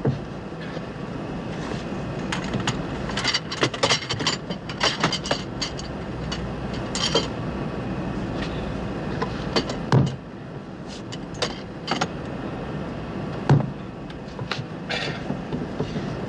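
Steady airliner cabin rumble under a run of knocks, clatters and bumps from a man in a full-leg plaster cast shifting about in a cramped aircraft lavatory, his metal crutches knocking against the fittings. Two heavy thumps stand out, about ten and about thirteen and a half seconds in.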